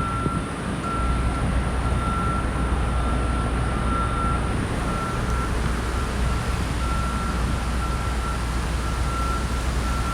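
A construction vehicle's reversing alarm beeping over and over at one pitch, over a steady low rumble of machinery and outdoor noise.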